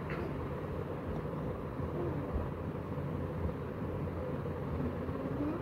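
Steady low background hum of room noise, with faint distant voices now and then.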